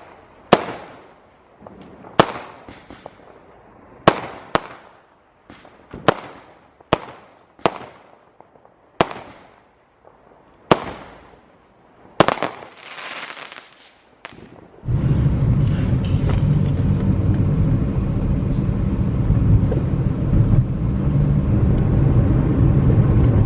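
Fireworks going off: about a dozen sharp bangs spread over the first fifteen seconds, each trailing off in a fading rumble, with a crackle after the last ones. About fifteen seconds in, a loud, steady rumbling noise suddenly takes over and continues.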